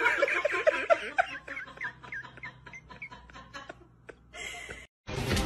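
A person laughing in a long run of quick, pitched 'ha' syllables that grow fainter and die away after about three seconds. Near the end the sound cuts out briefly and music begins.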